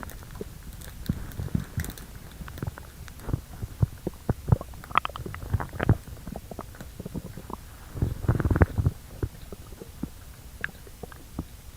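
Stomach gurgling and rumbling: a string of short, irregular pops and gurgles, with a longer, louder rumble about eight seconds in.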